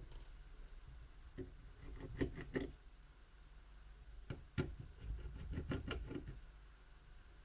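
Faint, scattered light clicks and taps of a screwdriver and small laptop parts being handled, in a few short clusters.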